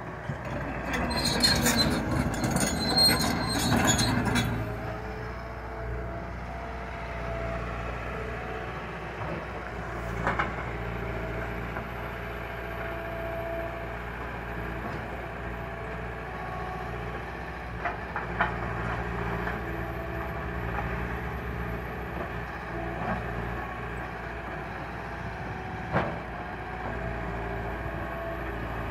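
Liebherr 936 crawler excavator's diesel engine running steadily while the machine works in loose rock. A loud grinding, squealing clatter lasts a few seconds near the start, and single metallic knocks come now and then afterwards.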